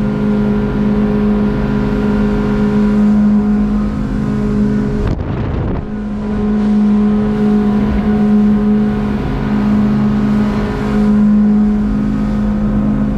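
Yamaha F70 four-cylinder four-stroke outboard running steadily at full throttle, about 6,000 rpm, with the motor trimmed. About five seconds in, the engine note breaks for about a second under a brief rush of noise.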